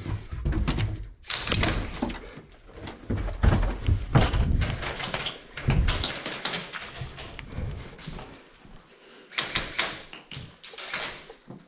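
Thuds, taps and knocks of a moving player's footsteps and gear close to the microphone, dense over the first half, then a few sharper clicks near the end.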